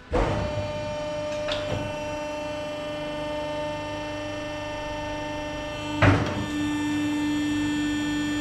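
Electric power-tool motor switched on and running with a steady whine, with two short knocks, the louder about six seconds in, then winding down with a falling pitch as it is switched off.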